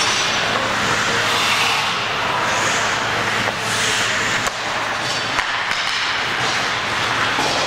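Ice hockey game in an arena: a steady din of rink noise with a few sharp knocks from the play on the ice.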